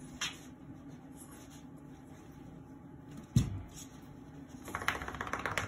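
Dogs moving about in fabric dog beds: a single dull thump about three and a half seconds in, then a quick flurry of scratching and rustling near the end as a rat terrier and her puppies shift and clamber.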